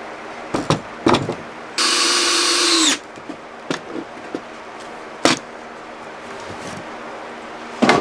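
Cordless drill driving a decking screw into a pressure-treated wooden leg: one run of about a second, about two seconds in, with the motor slowing at the end. Several sharp knocks of wood and tool being handled come before and after it.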